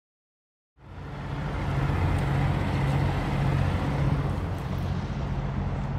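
Steady rumble of road traffic with a low engine hum, starting a little under a second in after silence and holding.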